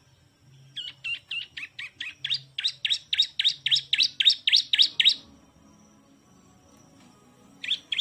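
Bar-winged prinia (ciblek) singing: a fast run of repeated notes, about five a second, growing louder over some four seconds before stopping, then two more notes near the end.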